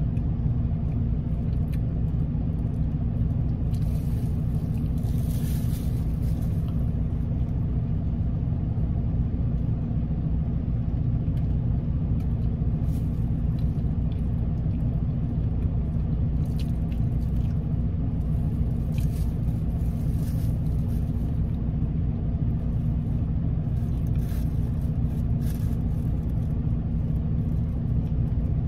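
Steady low rumble of a parked car's idling engine heard inside the cabin, with faint short rustles and chewing sounds a few times.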